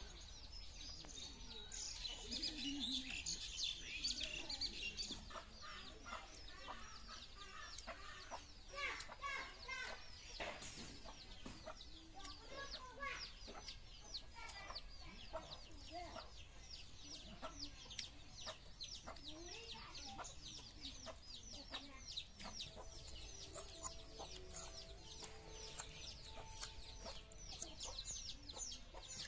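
A hen clucking with chicks peeping, many short high peeps repeating all through, busiest in the first few seconds.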